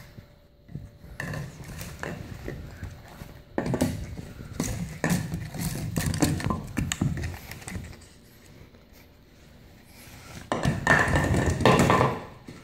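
A plastic water bottle being chewed, nosed and pushed around a hardwood floor by a French bulldog puppy: irregular knocking and crinkling. It is busiest from about four to seven seconds in and again near the end, loudest near the end, with a quieter lull in between.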